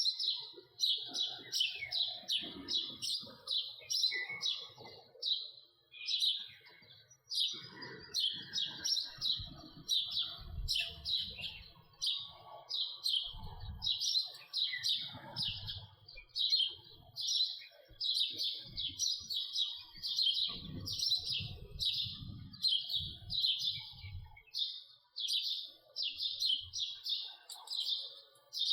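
House sparrow chirping, an unbroken run of short chirps at about three a second. Low thumps and rumbles sound underneath through the middle of the stretch.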